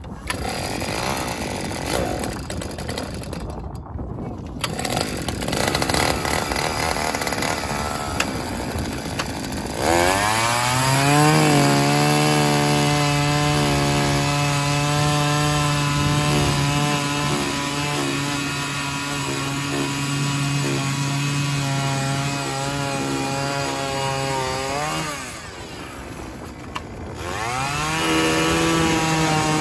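Small two-stroke engine of a gas-powered ice auger, running unevenly at low speed for about ten seconds, then revving up to a steady high whine as the bit bores down into the ice. About 25 seconds in it is throttled back briefly, then revved up again.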